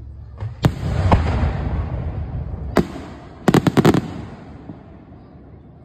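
Aerial firework shells bursting: sharp bangs about half a second and a second in, another near three seconds, then a quick run of about five cracks around three and a half seconds, with a rolling low rumble echoing between them.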